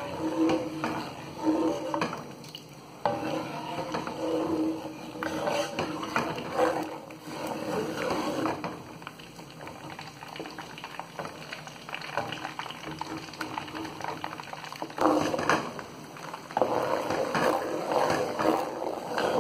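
A spoon stirring hot used frying oil with melted rosin in a metal pot, scraping against the pot and swishing through the liquid in irregular strokes.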